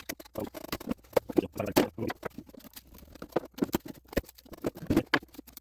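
Irregular cracking, snapping and scraping of a glued wooden model-airplane tail being pried and torn apart, with the sharpest snaps about two seconds in and again near the end.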